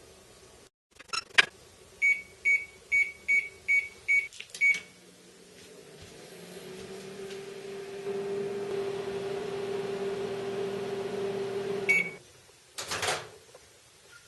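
Microwave oven being started: a knock, seven quick keypad beeps, then the oven running with a steady hum for about seven seconds. It stops with a single beep, followed by a clunk.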